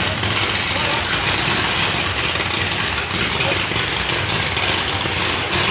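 Fireworks crackling in a dense, continuous stream of tiny pops over a steady low rumble.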